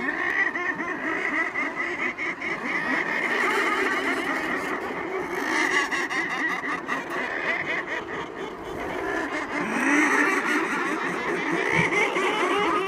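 Breeding colony of thick-billed murres calling on the cliff ledges: a dense chorus of many overlapping calls, without a pause.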